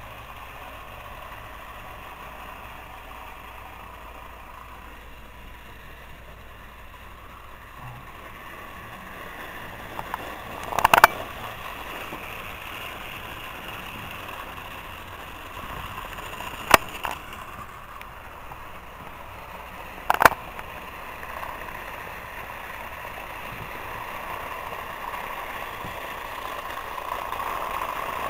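Battery-powered Trackmaster toy train running along plastic track, its motor and wheels making a steady whir. Three sharp clicks come at intervals, and the sound grows louder near the end.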